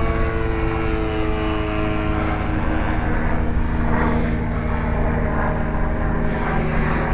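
Two-stroke 47cc converted chainsaw engine of a giant-scale RC Piper Cub running in flight, its propeller drone falling slowly in pitch over the first few seconds.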